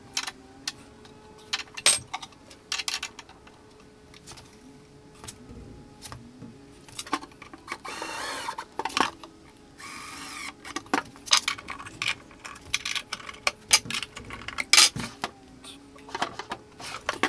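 A wooden drawer running in and out on metal drawer slides, with repeated clicks and knocks. A cordless drill drives screws into the slides in two short runs past the middle.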